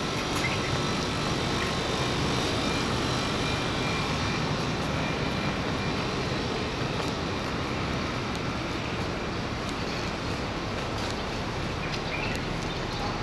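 Steady outdoor city background noise: an even, unbroken hum with no distinct events standing out.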